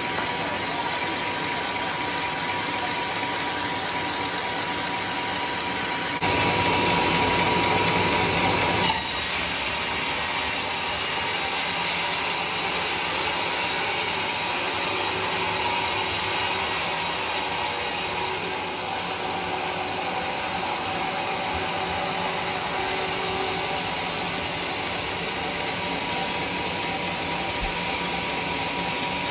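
Homemade band sawmill running, its blade cutting lengthwise through a teak log with a steady machine noise. The sound steps up and changes character abruptly about six seconds in, and shifts again near nine and eighteen seconds.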